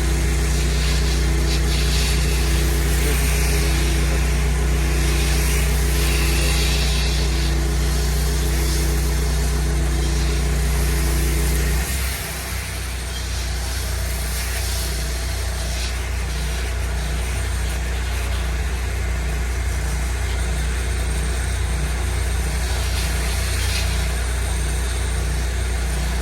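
Pressure washer engine running steadily. About halfway through, its note suddenly drops and settles into a lower, slightly quieter running pitch.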